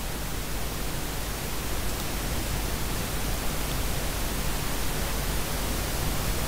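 Steady hiss with a faint low hum underneath: the recording's background noise, with no other sound.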